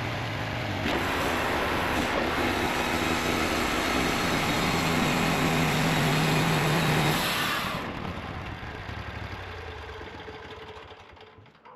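Custom-made sawmill's engine running hard to drive the blade. It drops back about eight seconds in and the noise dies away over the last few seconds.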